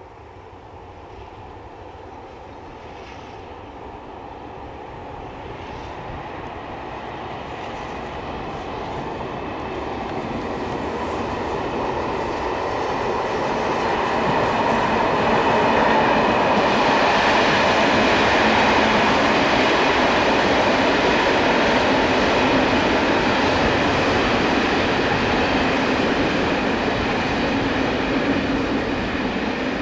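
A long passenger train running over the rails, its rumble and rail noise building steadily as it approaches, loudest about halfway through, then slowly fading.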